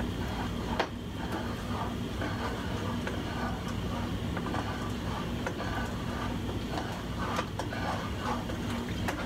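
A wooden spoon stirring thick, freshly made caramel in a saucepan, with soft scrapes and an occasional knock against the pot, over a steady low hum.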